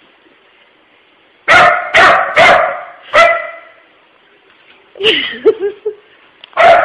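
Puppy alarm-barking at an unfamiliar object: four sharp barks in quick succession starting about a second and a half in, a few shorter yips around five seconds, and another bark near the end.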